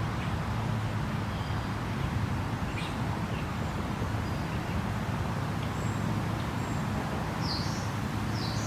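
Outdoor ambience: a steady low rumble with scattered short bird chirps over it, a few clearer chirps near the end.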